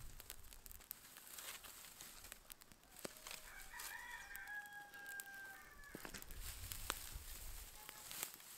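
A rooster crows once, one drawn-out crow starting about three seconds in, over scattered small sharp clicks.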